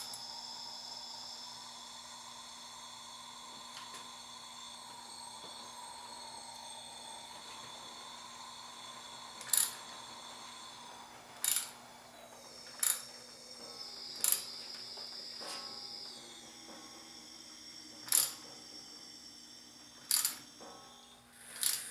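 Compressed air from a leak-down tester hissing and whistling out of a Honda CB550 cylinder while the engine is turned over by hand toward top dead center; the whistle's pitch shifts as the engine turns. Sharp clicks come every second or two in the second half.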